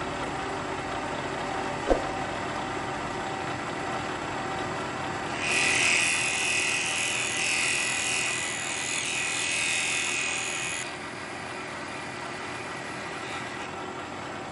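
Bridgeport milling machine running, with a single knock about two seconds in. From about five to eleven seconds the end mill cuts across an aluminum blank, a louder, higher-pitched cutting noise, then the machine runs on without cutting.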